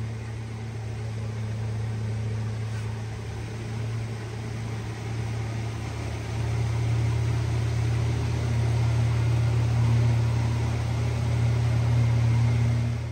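Small boat's motor running under way: a steady low hum with a hiss of wind and water over it, getting louder about six seconds in.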